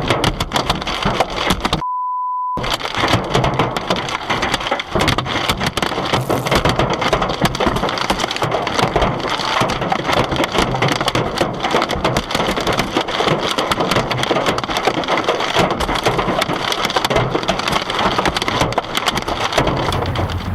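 Hailstones pelting a car, a dense, rapid clatter of hard hits that never lets up. About two seconds in the sound drops out for a short censor bleep.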